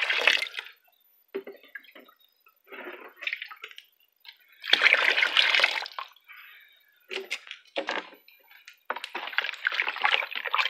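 Water poured into a tub of cow-manure slurry, then the slurry beaten and stirred with a broom handle: wet sloshing and splashing in separate bursts, the loudest lasting about a second, about five seconds in. The manure is being thinned and mixed as feed for a biogas digester.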